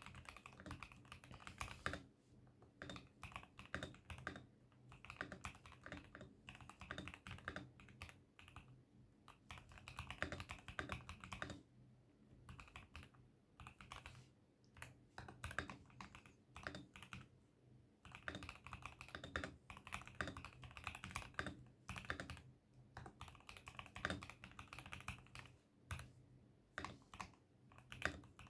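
Typing on an ASUS ROG Azoth wireless mechanical keyboard: rapid runs of key clicks and clacks, with a few brief pauses between bursts.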